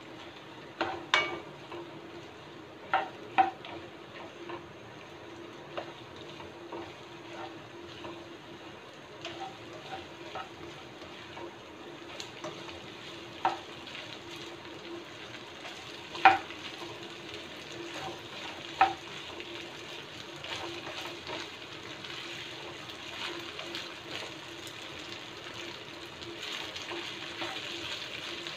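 Shrimp fried rice stir-frying in a nonstick pan: a steady sizzle under the spatula's scraping, with now and then a sharp knock of the spatula against the pan.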